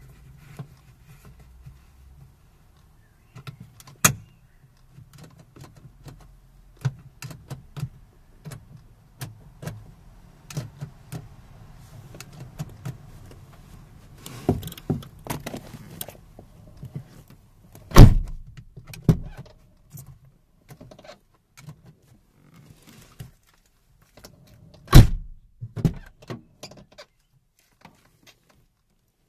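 A plastic interior door trim panel and its handle surround being handled and pressed into place on a car door, giving a string of scattered clicks, taps and plastic knocks. Two much louder knocks come in the second half.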